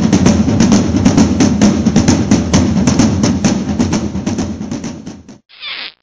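Background music with a fast, steady drum beat, fading out about five seconds in, followed by a brief hiss.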